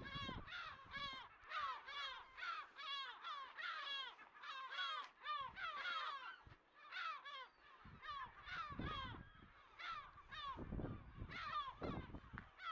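Many seabirds, most likely gulls of the island colony, calling together in a dense chorus of repeated, overlapping yelping calls, with a few low rumbles on the microphone partway through.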